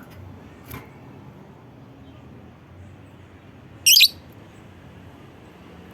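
Lovebird giving one short, loud, shrill chirp about four seconds in, over faint background noise.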